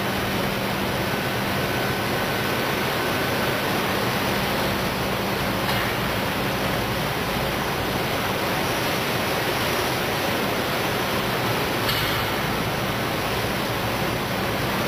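Steady machine noise of a running ERSA Versaflow selective soldering system: a constant rush with a low hum underneath, and two faint clicks about six seconds apart.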